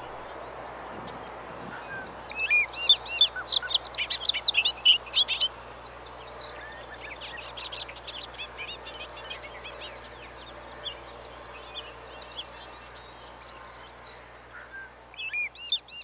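Songbirds singing in a field: a busy burst of rapid, bubbly chirping notes a couple of seconds in, fainter scattered song after it, and another burst near the end, over a steady low background hum.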